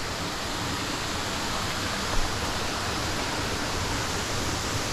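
Steady rush of a waterfall, close by, with a brief faint knock about two seconds in.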